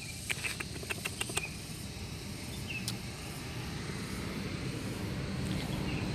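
A few sharp clicks in the first second and a half, then the low hum of a passing motor vehicle growing gradually louder as it approaches.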